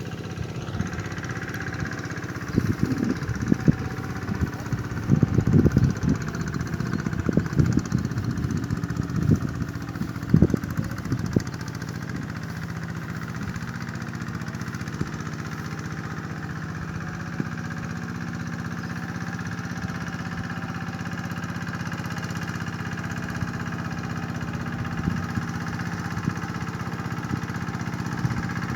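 Tractor engine running steadily, with a run of loud knocks and clatters in the first dozen seconds.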